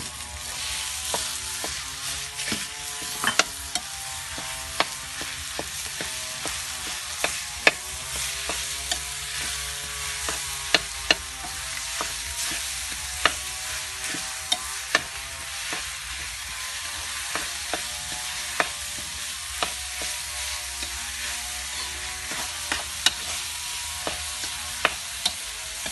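Minced pork sizzling in a hot wok of fried aromatics while a metal ladle stirs and scrapes it, with sharp clinks of the ladle against the wok about once a second.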